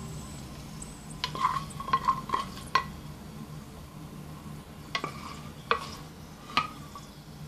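Wooden spoon knocking and scraping in a small pan while scooping out walnuts fried in oil with red pepper flakes. A quick run of taps comes in the first few seconds, then three single knocks spaced apart.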